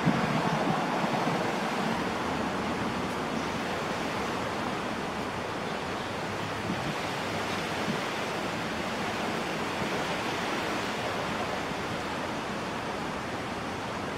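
Steady rushing wind noise on the microphone, a little stronger in the first couple of seconds, with no distinct events.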